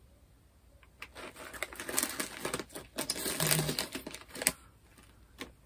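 Crackling and rustling of garlic rye chips and their packaging being handled. It starts about a second in and stops after a sharp click about four and a half seconds in, with one more click near the end.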